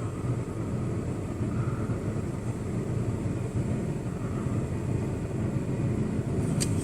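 Steady low rumble of motor-vehicle traffic running nearby, growing a little louder near the end.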